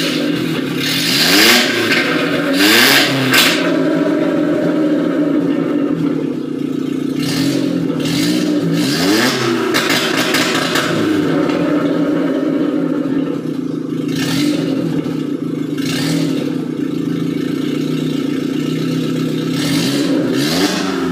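Chevrolet Celta's four-cylinder engine idling steadily with its aftermarket exhaust diffuser switched on. The engine is revved in short blips: a few in the first seconds, two more around the middle and one near the end.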